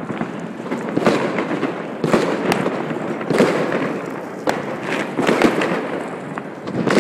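Fireworks and firecrackers going off in a city street: a continuous crackling din broken by about nine sharp bangs at irregular intervals.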